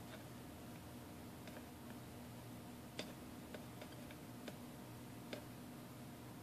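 Faint, scattered small ticks from soldering a battery terminal clip on a circuit board, five or so at irregular intervals with the sharpest about halfway through, over a steady low hum.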